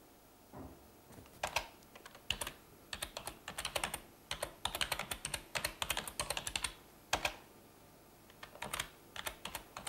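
Typing on a computer keyboard: uneven runs of key clicks starting about a second in, with a short pause about three-quarters of the way through before the typing resumes.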